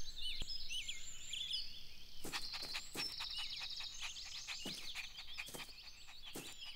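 Birds chirping and twittering in a garden ambience, with a brief buzzy trill about two seconds in and a few soft taps scattered through the second half.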